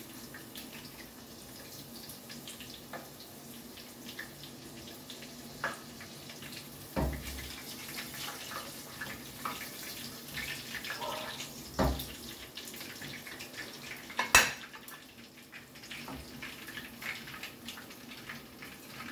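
Breaded shrimp tempura deep-frying in a pan of hot oil, a steady sizzle. Metal tongs knock against the pan a few times, one knock sharper than the rest.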